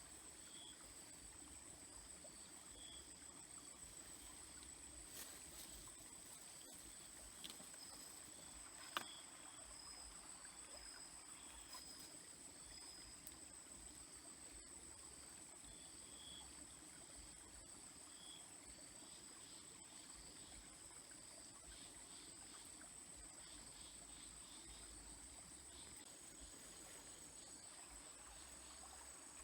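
Crickets or similar insects trilling steadily at a high pitch, faint, over a quiet trickling stream, with one sharp click about nine seconds in.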